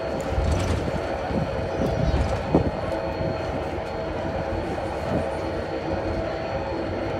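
Railway depot traverser (transfer table) running along its rails with a steady motor hum and a low rumble, with a single clunk about two and a half seconds in.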